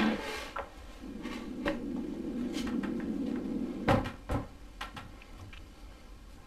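Knocks and thumps of a small child climbing onto a wooden table, his hands and sneakers bumping the tabletop several times. The loudest thump comes about four seconds in, as he gets his feet up onto the top.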